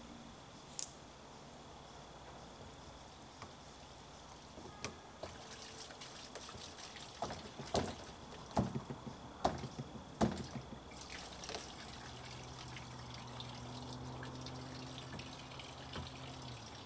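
Water trickling faintly in a plastic spring-collection barrel, with a run of light plastic clicks and knocks in the middle as PVC pipe fittings are handled. A faint low hum comes in past the halfway point.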